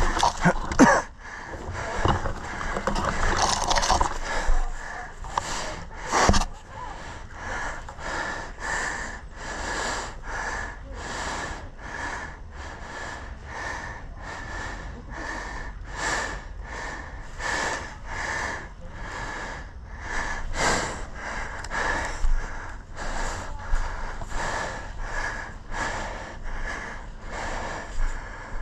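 Rapid, hard breathing close to the microphone, about two breaths a second, from a player exerting himself.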